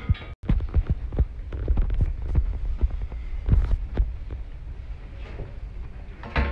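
Handling noise from a hand-held phone being carried and moved about: irregular low thuds and rumbling, with a brief dropout about half a second in.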